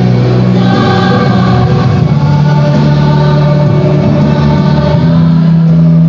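High-school choir singing sustained chords under a conductor, moving to a new held chord about five seconds in.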